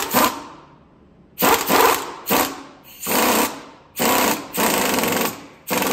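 Pneumatic impact wrench hammering in a series of short bursts, driving a strut spring compressor's screw down to compress the coil spring and take tension off the strut.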